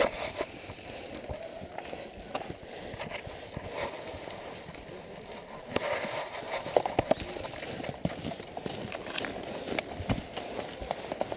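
Footsteps and rustling over dry ground and brush, with irregular sharp clicks and knocks that are loudest about six to seven seconds in.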